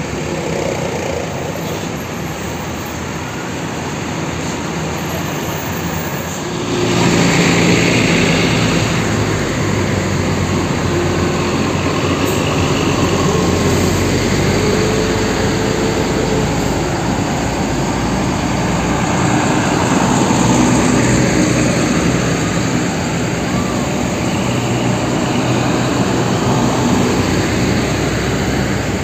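Large diesel tour coaches driving past one after another, their engines running steadily. The sound gets louder about seven seconds in as a coach passes close.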